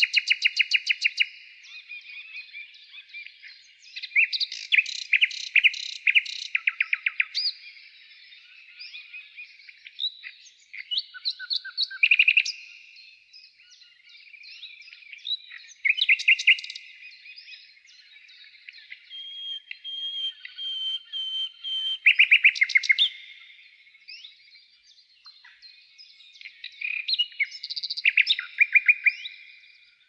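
Several songbirds singing together: loud phrases of rapid repeated notes every few seconds over softer, overlapping twittering and chirps.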